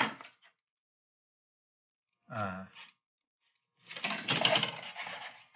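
A short vocal murmur about two seconds in, then about a second and a half of scraping and knocking from hands handling foamcore and tools on a workbench near the end.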